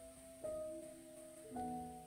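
Gentle instrumental background music, a new note struck about every second and left to ring.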